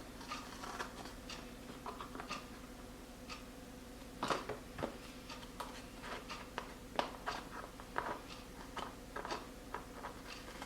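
Stiff paper being cut and handled: a string of short, quiet snips and clicks at irregular intervals, the two loudest about four seconds in. A faint steady hum runs underneath.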